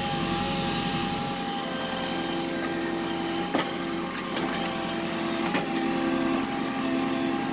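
Backhoe loader's diesel engine running steadily while it digs, with a few sharp knocks in the middle.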